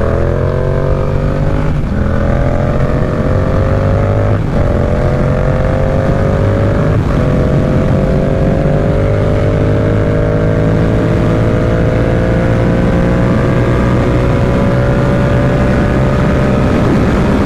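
Yamaha R7's parallel-twin engine accelerating hard, its pitch climbing and dropping briefly at three quick upshifts in the first seven seconds, then holding a steady, slowly rising pitch at cruise. Wind rushes over the microphone throughout.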